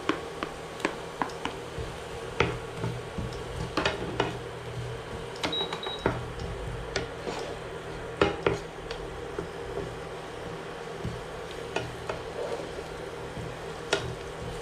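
Spatula knocking and scraping in a nonstick frying pan while stirring shallots and onions frying in oil, with irregular sharp taps, the loudest about eight seconds in. A faint sizzle and a steady hum sit underneath.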